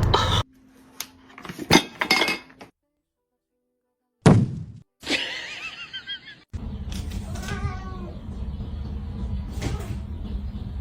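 Domestic cats meowing in short cut-together clips, with a few sharp knocks and clatter near the start and an abrupt drop to silence about three seconds in.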